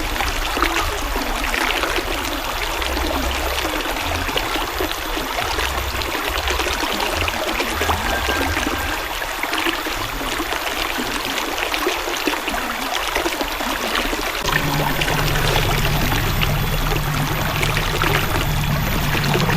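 River water flowing, a steady rush of running water. About three-quarters of the way through, a deeper low rumble joins and the flow gets slightly louder.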